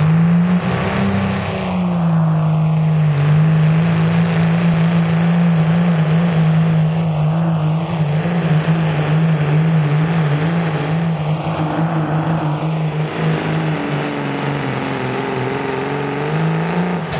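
Dodge Ram pickup's Cummins diesel at full throttle under heavy load, dragging a pulling sled. It is a loud, steady drone that sags a little in pitch near the end and then climbs again.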